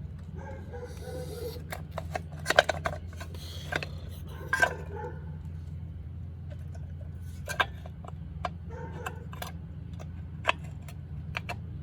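Metal tools clinking and knocking against dirt bike parts during a teardown: scattered sharp metallic taps, the loudest about two and a half seconds in, over a steady low hum.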